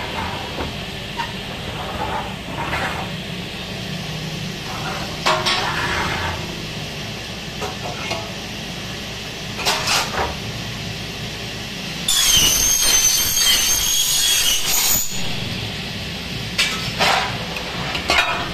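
Aluminium window sections clinking and knocking as they are handled, several times. About twelve seconds in, a power saw cuts through aluminium for about three seconds with a loud, high-pitched whine.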